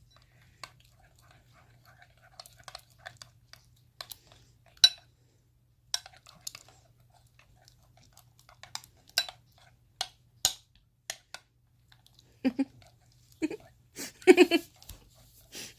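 A spoon stirring floam slime in a bowl: irregular sticky, wet clicks and squelches as the glue, detergent activator and foam beads are worked together, with a few louder squelches near the end.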